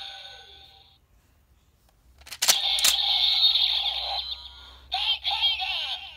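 Kamen Rider Ghost Driver toy belt: its electronic standby music fades out, then two sharp plastic clicks as its lever is worked, and the belt plays an electronic tone followed by its recorded transformation voice and song from about five seconds in.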